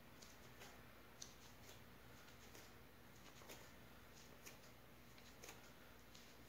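Near silence with faint soft ticks, roughly one a second, as a bare foot treads and presses out a mound of white porcelain clay.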